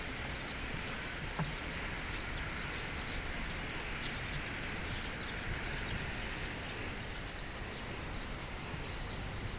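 Steady outdoor city background noise with the light footsteps of someone walking, and a few faint short ticks.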